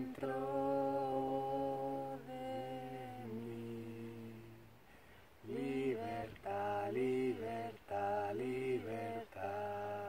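Two voices, a man's and a woman's, chanting together unaccompanied. Long held notes come first, then after a short pause about five seconds in, a run of shorter notes.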